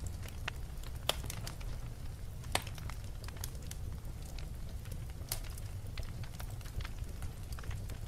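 Crackling fire: irregular pops and snaps over a steady low rumble, with two louder pops in the first three seconds.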